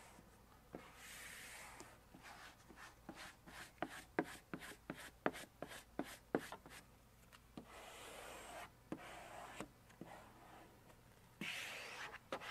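Hand squeegee rubbing vinyl stripe down onto a vehicle door panel. There are longer hissing swipes, and in the middle a quick run of short scraping strokes at about three or four a second.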